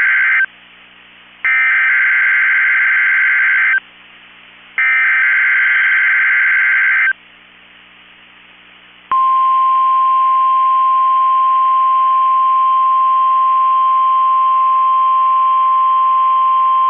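NOAA Weather Radio Emergency Alert System (SAME) header: the end of one screechy digital data burst, then two more bursts about a second apart, marking the start of a Required Weekly Test. After a short pause, the steady 1050 Hz warning alarm tone starts about nine seconds in and holds.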